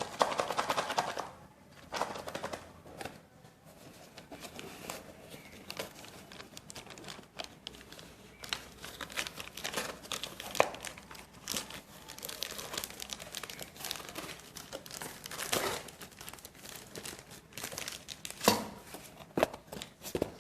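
Packing paper and packaging crinkling and rustling as an amplifier board kit is pulled out of its box by hand, with scattered sharp clicks and a few handling knocks.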